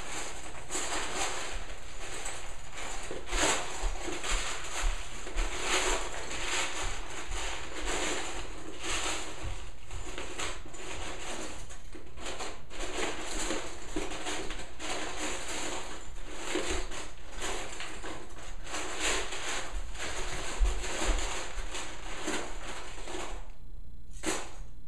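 Small plastic building-toy pieces rattling and clattering continuously as hands rummage through a plastic storage bin full of them.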